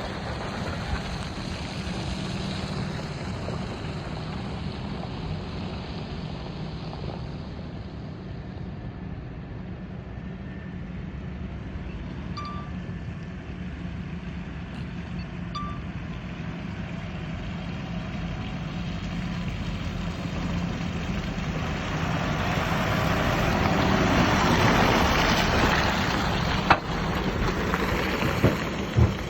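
Farm machinery engine running steadily with a low drone. Two short beeps come about 12 and 15 seconds in. A louder rush of noise builds in the last third.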